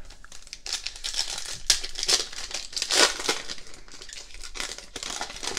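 Foil wrapper of a 2018 Optic basketball card pack being torn open and crinkled as the cards are pulled out, in irregular crackling bursts, loudest about two and three seconds in.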